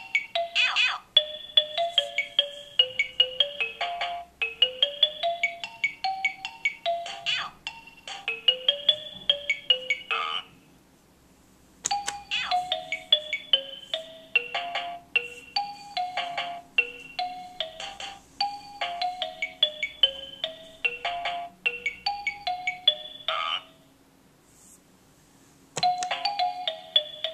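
Carousel Chunky Laptop baby toy playing simple melodies in bright, beeping electronic notes through its small built-in speaker. The tune stops twice for a second or two, then starts again.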